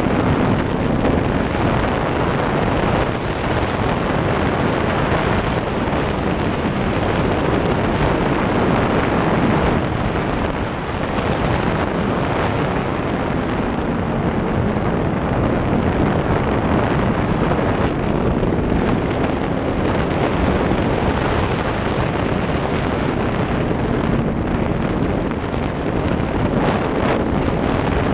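Wind rushing over the microphone at riding speed, over the faint, steady note of a Yamaha R1's inline-four engine cruising. The noise dips briefly about ten seconds in.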